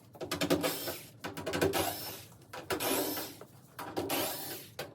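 Sheet-metal dryer panel being worked open: four scraping strokes about a second apart.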